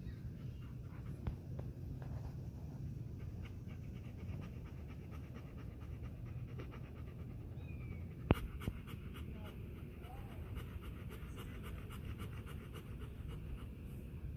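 Golden retriever panting quickly and rhythmically, mouth open and tongue out. A single sharp click about eight seconds in is the loudest sound.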